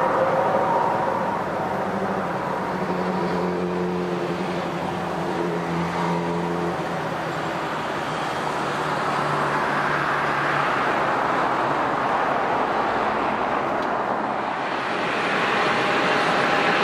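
Jet airliner on final approach, its engine noise swelling as it comes closer. Near the end, a twin-turboprop airliner taxis with a steady propeller whine.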